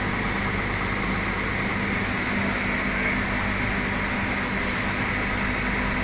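Steady whir of a 4-ton floor-standing air conditioner's indoor unit running, its blower fan on, with a constant low hum beneath.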